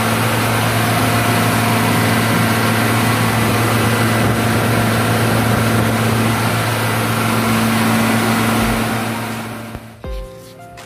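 High-pressure air compressor for filling scuba tanks running, a steady hum with a strong hiss. It fades out about a second before the end, and a few notes of music come in.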